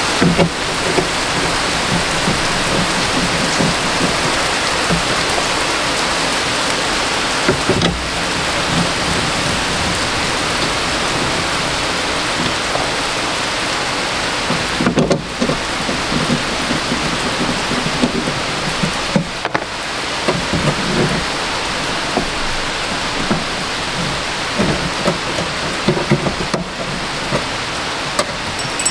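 A steady rushing hiss, rain-like, with a few soft knocks here and there.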